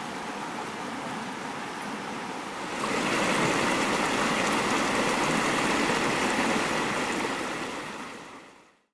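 Creek water rushing steadily over rocks, stepping up louder about three seconds in, then fading out near the end.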